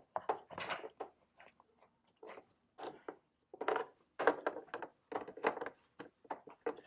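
Wooden puzzle pieces being handled and fitted into a wooden puzzle board: a run of irregular small clacks and knocks.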